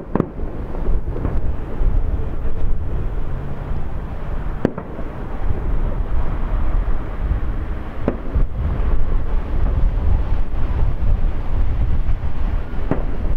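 Aerial fireworks shells bursting, with sharp bangs at the start, about five seconds in, about eight seconds in and near the end, over a continuous low rumble.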